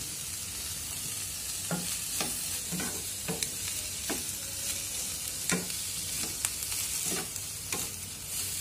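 Vegetables sizzling in oil in a frying pan while a wooden spatula stirs them, with a steady hiss and irregular knocks and scrapes of the spatula against the pan every half second to second.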